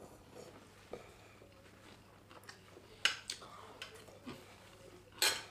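Two people eating with forks from ceramic plates: quiet chewing and mouth sounds, broken by a few sharp clicks and smacks, the loudest about three seconds in and near the end.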